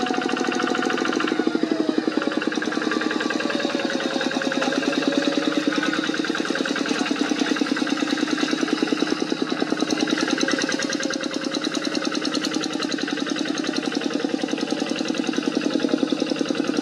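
Two-wheel hand tractor's Kubota diesel engine running steadily under load while ploughing, with rapid, even firing pulses.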